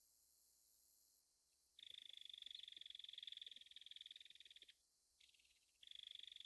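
Belted kingfisher giving its rattle call, a rapid string of clicks. One long rattle of about three seconds, then a short fainter one, and another rattle starting near the end.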